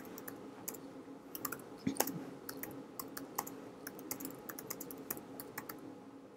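Typing on a computer keyboard: faint, irregular key clicks as a terminal command is entered, with one firmer keystroke about two seconds in, over a faint steady hum.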